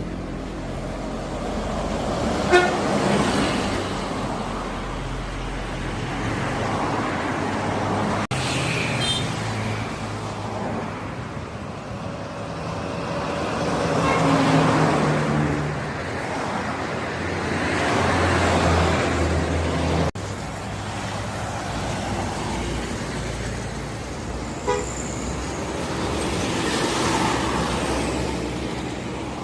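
Buses passing on a road one after another, their engine noise swelling and fading with each pass. Short horn toots sound a few times, about two and a half seconds in, around nine seconds and near the end: drivers tooting in greeting to the roadside bus fans.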